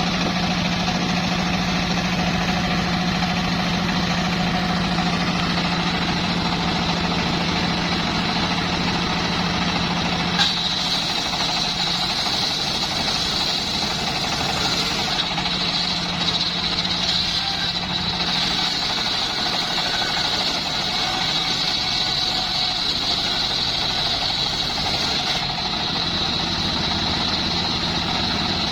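An engine running steadily with a constant hum; about ten seconds in there is a short click, after which a steady high whine joins it.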